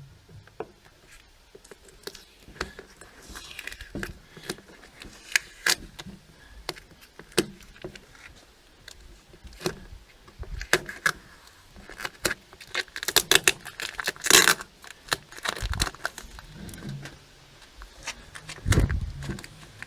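Masking tape and paper being peeled off a freshly spray-painted microwave casing and crumpled, in scattered crinkles, clicks and scrapes. A louder rustle comes about 14 seconds in, and a low knock near the end.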